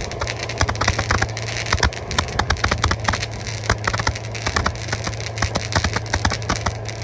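Fireworks crackling: a dense, irregular run of sharp pops and snaps, several a second, over a steady low hum.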